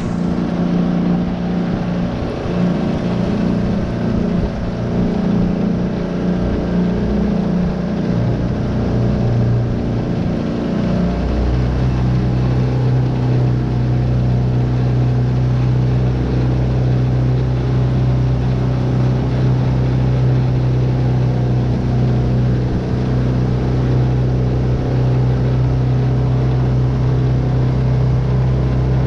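A Tohatsu 9.8 hp four-stroke outboard motor running under way. Its note wavers for the first ten seconds or so, then settles into a steady drone about eleven seconds in.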